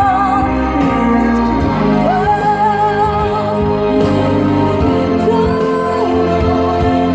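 Slow music with a singer holding long notes with a wavering vibrato over a steady accompaniment.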